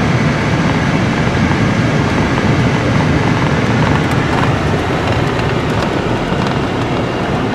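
Pickup truck driving on a dirt forest road, heard from inside the cab: a steady rumble of engine and tyres on the unpaved surface.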